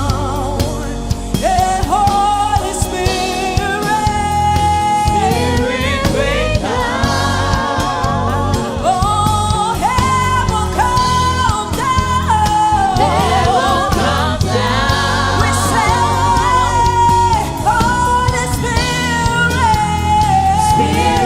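Gospel music: a singer holding long, wavering notes over a band with a steady bass.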